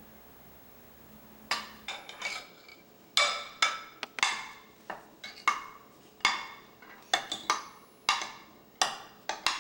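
A serving ladle clinking against glass bowls as pudding is ladled from a glass mixing bowl into a glass baking dish. The sharp, irregular clinks start about a second and a half in, come every half second to a second, and each rings briefly.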